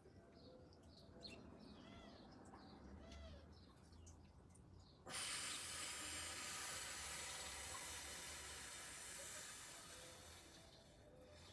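Small birds chirping, then about five seconds in a long breathy hiss starts suddenly and slowly fades over some six seconds: a slow, deep exhale close to the microphone during a breathing exercise.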